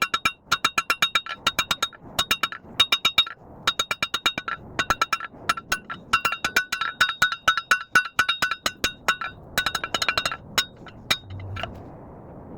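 Hammer blows on a hot steel bar at the anvil, several a second in quick runs with short pauses, each strike ringing the anvil at the same few pitches. The hammering stops near the end.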